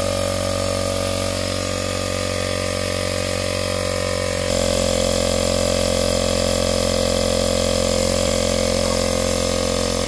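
Tesla tire repair kit's 12-volt electric air compressor running steadily while inflating a car tire. About four and a half seconds in, its note shifts and it gets a little louder.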